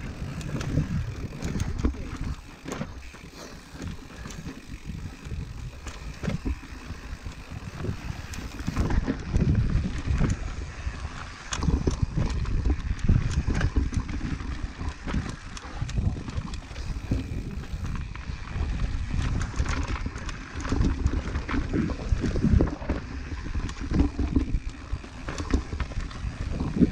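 Mountain bike descending a rough dirt trail, with tyre and ground rumble and frequent knocks and rattles from the bike as it runs over rocks and roots.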